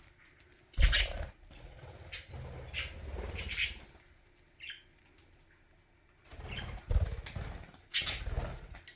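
Pet budgies fluttering and scrabbling in four short bursts of rustling, with one brief chirp about halfway through.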